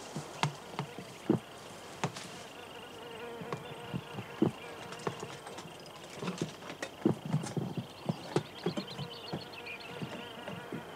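Climbing boots scuffing and knocking on limestone rock as a climber works his way down a narrow crevice, with equipment bumping against the rock: irregular knocks and scrapes, some sharper than others, with a faint steady high tone behind them.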